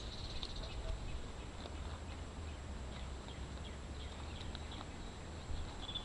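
Quiet outdoor garden ambience: a steady low rumble with faint, scattered high chirps.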